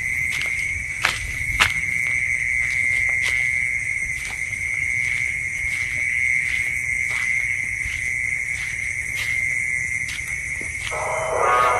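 Night insects, crickets, chirring in a steady high drone, with a couple of sharp clicks about a second in. A louder rushing noise comes in near the end.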